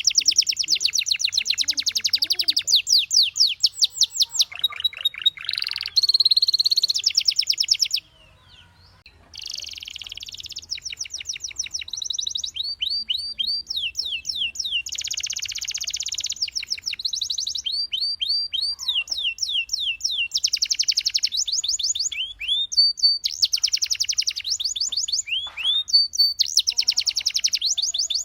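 Canary singing: fast trills of repeated, sharply rising high notes, strung into phrases of different speeds, with a short break about eight seconds in.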